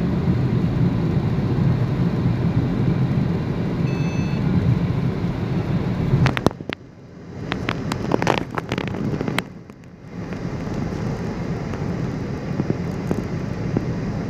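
Steady road and wind noise in a moving car driving through a sandstorm, with a heavy low rumble. About six seconds in it breaks off with a few clicks and twice drops much quieter for a moment before the steady noise returns.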